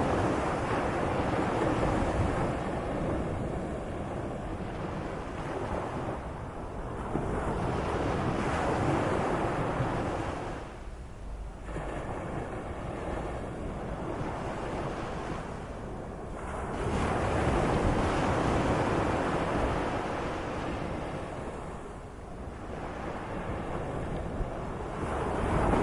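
Sea waves washing in and drawing back at a moderate swell, the noise building and fading every few seconds, with some wind rumble on the microphone.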